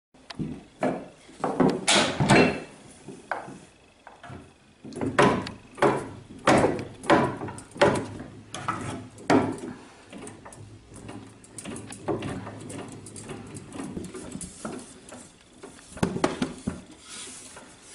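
Old cast-iron treadle sewing machine being pedalled: the treadle and its linkage knock and creak with each stroke, about one and a half strokes a second at their most regular, settling into a quieter, steadier rattle later on.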